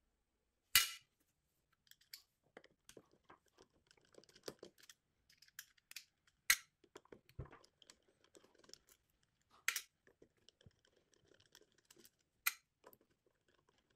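Screwdriver with a square S1 bit backing screws out of a KitchenAid tilt-head mixer's metal housing: faint scraping and ticking of the bit and screws, with four sharp clicks, the loudest about a second in.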